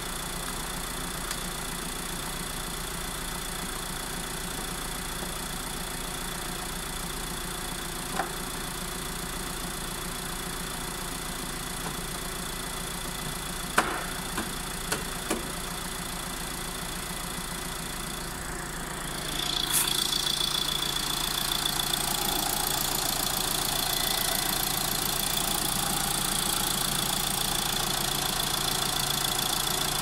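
Opel 2.0 CDTi four-cylinder diesel engine idling steadily with its new timing belt and timing chain fitted. A few sharp clicks come in the middle, and the running sound grows louder and brighter about two-thirds of the way in.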